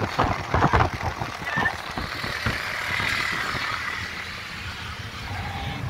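Road and wind noise of a moving car, heard from inside the cabin: a steady rush with a low rumble underneath.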